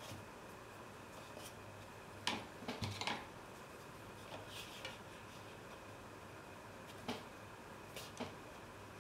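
Light taps and clicks of a paintbrush and painting materials being handled at the desk, a small cluster a couple of seconds in and a few single ones later, over a faint steady hum.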